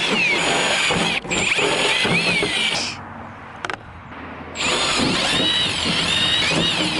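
Power drill fitted with a larger bit, boring out holes in a car's sheet-metal trunk lid, with a wavering high squeal from the bit on the metal. It runs in two bursts with a pause of about a second and a half in the middle.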